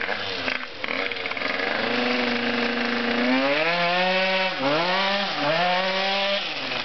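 Yamaha Aerox two-stroke scooter engine revving as it rides in. The pitch climbs steadily from about three seconds in, drops and climbs again twice as the throttle is eased and reopened, then falls near the end. The owner says the transmission is still out of tune.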